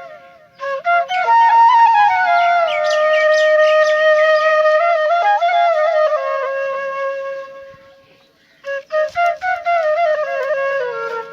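Background music: a solo flute melody in long phrases, with a pause of under a second about eight seconds in.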